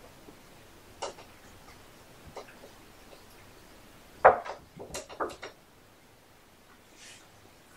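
A few sharp knocks and clicks, with a quick cluster of several about four seconds in.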